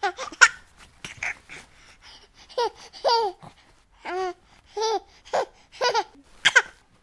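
Baby laughing and babbling in a string of short, high-pitched squeals and giggles, about a dozen bursts with brief pauses between them.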